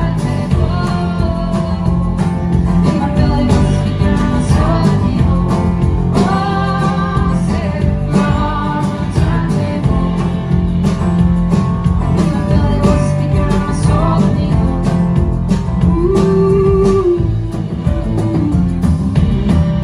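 A folk band playing live: strummed steel-string acoustic guitar, plucked upright double bass and drum kit, with a wavering melody line above them.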